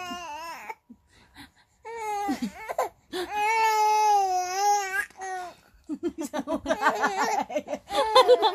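A three-month-old baby crying in long, high-pitched wails, each held for up to about a second and a half, with short pauses between them. Near the end a woman laughs in short, quick bursts alongside the cry.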